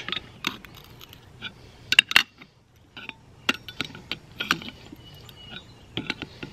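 Adjustable wrench clinking on the steel nut of a Simpson Strong-Bolt 2 wedge anchor as the nut is tightened down on a galvanized angle bracket set in concrete. Irregular metallic clicks, the loudest two close together about two seconds in.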